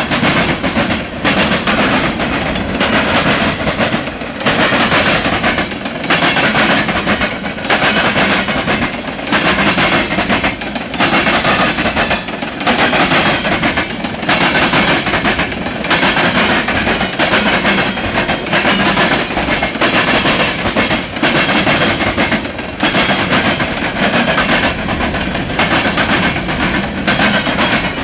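Norfolk Southern freight train's cars rolling past close by, steel wheels clacking over the rail joints, with a regular beat every second or two as each car goes by.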